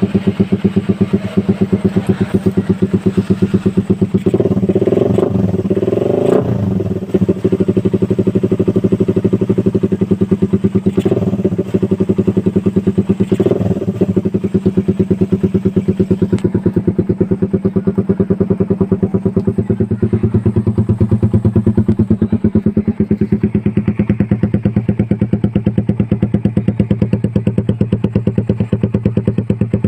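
Motorcycle fitted with a Daeng Sai4 aftermarket exhaust, idling with a steady pulsing note. It is blipped up in revs a few seconds in and briefly twice more a little later.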